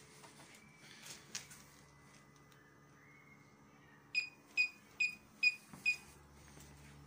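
Citroën C-Elysée's rear parking sensor beeping five times, about two short beeps a second, with reverse engaged. Before it, a few faint knocks.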